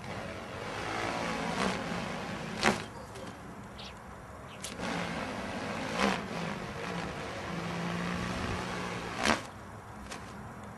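Cosmos freestyle stunt kite swishing through the air in three rising swells of whoosh with a low buzz. Each swell ends in a sharp snap, typical of the sail snapping taut as the kite turns or pops into a trick.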